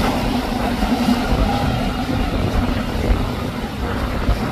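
Outboard motors on a center-console boat running at speed, the hull pounding through choppy water, with a steady noisy rumble and gusts of wind on the microphone.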